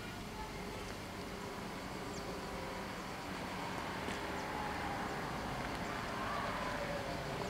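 Regional train approaching on the line. A steady rumble with a faint high whine grows slowly louder.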